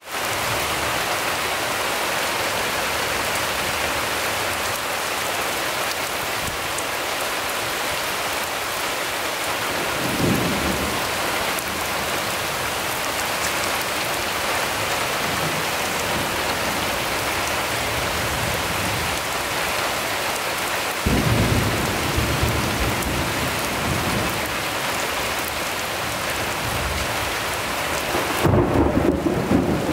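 Steady heavy rain falling on wet pavement and foliage. A low rumble swells briefly about ten seconds in, returns at about twenty-one seconds, and grows louder near the end.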